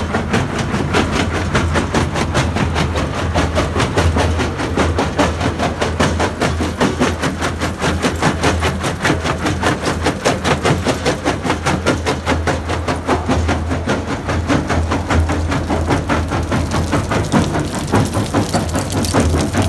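CDI C60 PTO-driven jaw crusher running, with a rapid, continual clatter over the steady drone of the tractor driving it.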